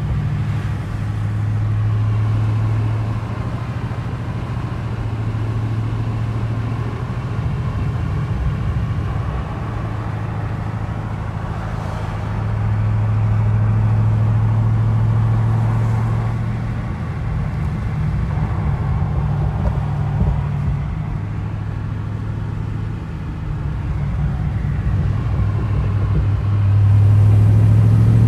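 A 2010 Chevrolet Camaro SS's 6.2-litre V8 heard from inside the cabin while cruising at about 40 mph: a steady low engine and exhaust drone. It swells louder about halfway through and again near the end.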